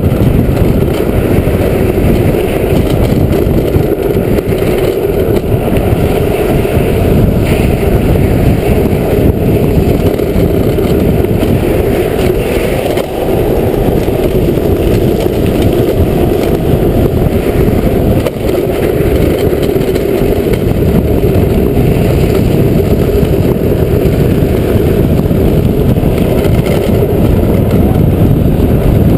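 Loud, steady rush of wind on the microphone mixed with the rumble of a drift trike's wheels rolling on asphalt at speed downhill, dipping briefly twice.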